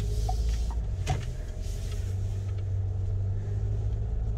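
Steady low rumble of a car driving, engine and tyre noise heard from inside the cabin, with a short click about a second in.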